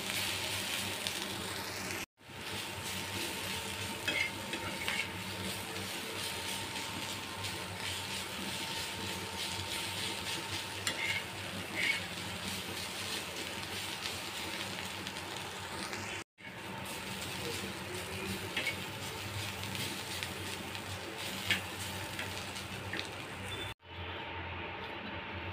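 Bitter gourd and potato slices sizzling in oil on a flat iron tawa while a metal spatula stirs them, scraping and tapping the pan now and then. The sound cuts out briefly a few times, and near the end the sizzling stops.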